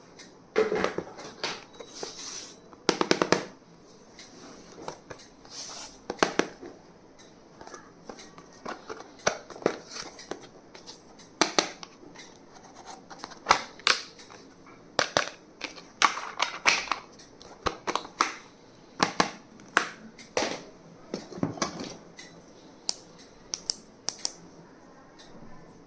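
Stationery and its packaging being handled: irregular clicks, taps and short rustles, some in quick clusters, at uneven intervals.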